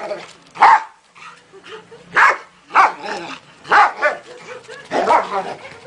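A dog barking, about six sharp barks at uneven intervals.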